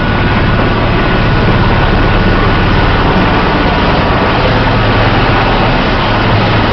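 Helicopter at close range, its rotor and turbine making a loud, steady noise with a low hum underneath, picked up on a mobile phone's microphone.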